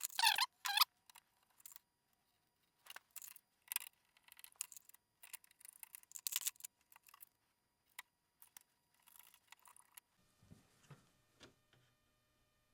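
Faint, scattered clicks and small scrapes of hand tools on wiring as wire connections are made up and tightened, with a brief high-pitched squeak at the start.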